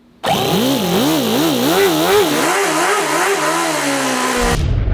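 Toyan FS-L400 miniature four-cylinder glow-plug engine running at high speed, its pitch surging up and down about twice a second as the revs hunt, then falling. A low rumble takes over near the end.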